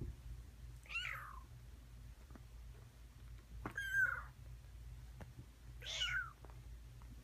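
Young kitten mewing three times: short, high calls that slide down in pitch, with a few faint clicks between them.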